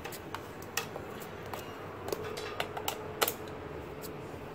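A Kensington ClickSafe laptop cable lock being handled and fitted to its anchor in the steering column of a Segway Ninebot Minipro: a string of irregular light clicks and rattles, with the sharpest click about three seconds in.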